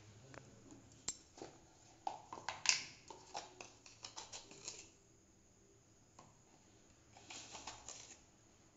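Sporadic light clicks and small clattering of kitchen handling on a counter, loudest about three seconds in, then a silent pause and a short run of light scratchy clatter near the end.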